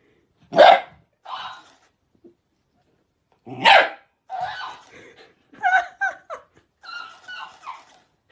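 Dog barking at a plush talking-hamster toy: two loud barks about three seconds apart. Each is followed by quieter, higher-pitched sounds that fit the toy playing the barks back.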